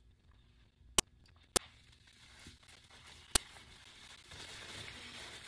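Paper towel being handled and crumpled, a soft rustle that grows louder toward the end, after three sharp clicks.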